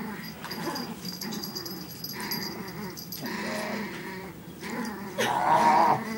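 Small puppy growling while it tugs on a toy in a game of tug-of-war; the growling grows louder and higher near the end.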